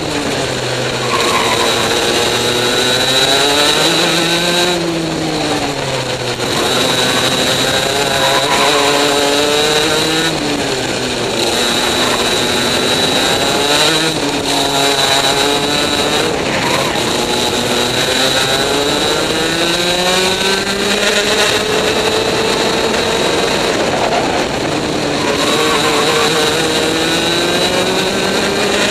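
Maxter 125 cc two-stroke KF3 kart engine at racing speed, its pitch climbing along each straight and dropping sharply when the driver lifts off for a corner, six or seven times over.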